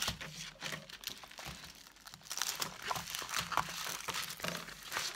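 Paper crinkling and rustling as a rolled diamond-painting canvas is slid out of its paper wrapping and unrolled flat, its protective paper sheet crackling under the hands. The rustling eases briefly about two seconds in, then picks up again.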